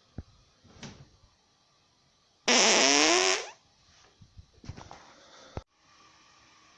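A loud fart lasting about a second, starting suddenly, with a buzzy tone that wavers in pitch before it trails off.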